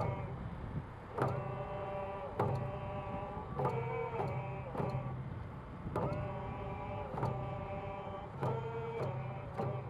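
Hand-held frame drums struck in a slow, steady beat, about one stroke every second and a bit, under voices singing a Coast Salish song in long held notes that change pitch with the strokes.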